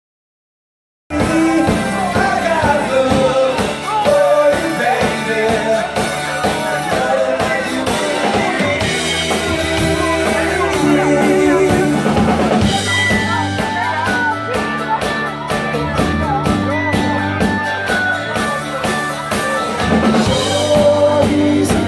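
Live rock-and-roll band playing: drum kit, electric bass, electric guitar and keyboard, with a male lead vocal. The music starts abruptly about a second in.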